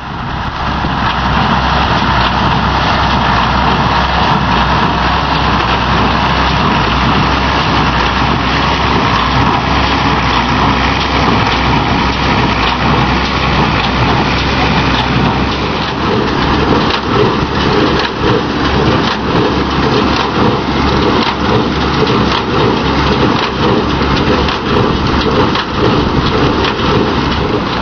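Allis-Chalmers 190XT tractor running steadily under load while driving a New Holland 565 square baler, under a heavy, even rushing noise. From about halfway through, the low sound turns choppy with many short repeated pulses.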